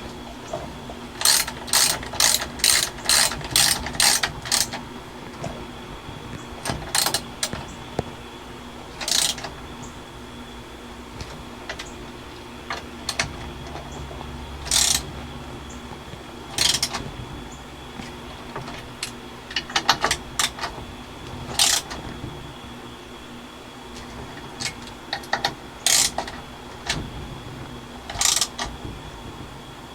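Hand ratchet wrench clicking as bolts are run down: a quick run of about three clicks a second near the start, then scattered single clicks and short bursts.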